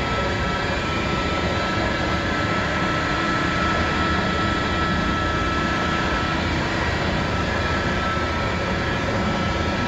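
Steady running machinery: a low hum with several steady whining tones, unchanging throughout.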